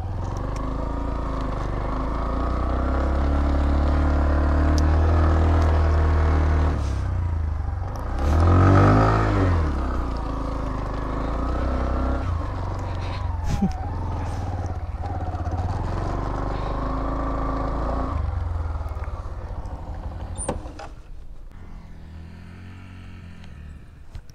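Yamaha R15M motorcycle's single-cylinder engine running under way, its pitch shifting as the revs change. About eight seconds in it surges briefly louder, the pitch rising and falling back, and it dies down over the last few seconds.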